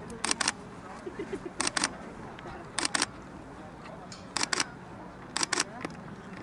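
Single-lens reflex camera shutters firing five times, about one frame every second or so. Each shot is a quick double click.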